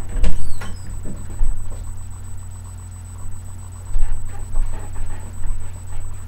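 Footsteps and thumps of a person moving about a bedroom close to a webcam microphone, loudest just at the start and again about four to six seconds in. Under them runs a steady low electrical hum with a faint high whine.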